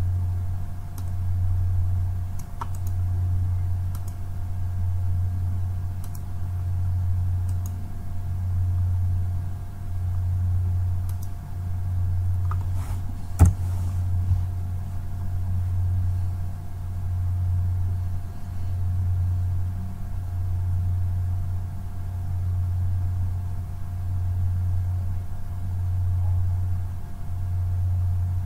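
A low steady hum that swells and dips every two seconds or so, with one sharp keyboard key click about halfway through and a few fainter clicks before it.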